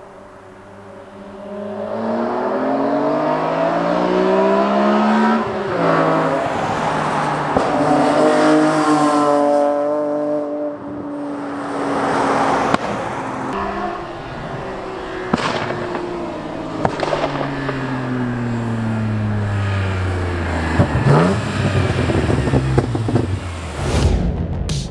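BMW E46 M3's straight-six through a CPI RASP-eliminator exhaust, with a deep, throaty note, revving up hard through two gears, then falling away in pitch as the car goes past and off. There are a few sharp cracks along the way, and music begins at the very end.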